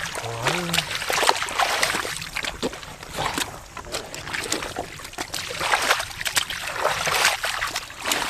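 Wet mud squelching and shallow muddy water splashing as hands grope and slap through a flooded rice paddy, in irregular sloshes and splats. A brief voice sounds about half a second in.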